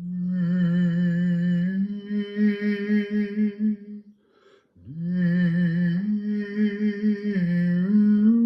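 A man's voice humming or singing a slow, wordless sound-healing melody without words, in two long held phrases with a slight waver in pitch, a breath between them about four seconds in.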